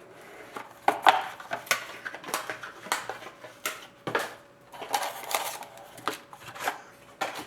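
A sealed hockey card box and its pack being opened and handled by hand: irregular crinkles, clicks and taps of cardboard and wrapper, one or two a second.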